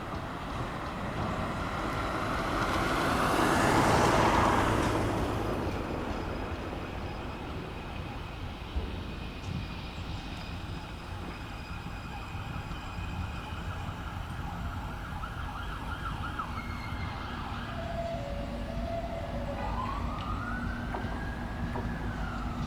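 Car alarms set off by a passing diesel train's noise, sounding in held electronic tones, with a rising then falling siren sweep near the end, over a steady low rumble. A loud rushing pass swells and fades about four seconds in.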